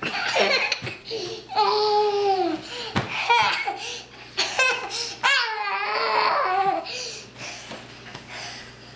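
A young child laughing in long, high-pitched peals, with a soft thump or two between them.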